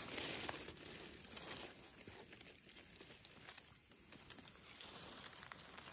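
Faint outdoor ambience: a steady high-pitched insect drone, with light rustling and a few small ticks in the first second or so.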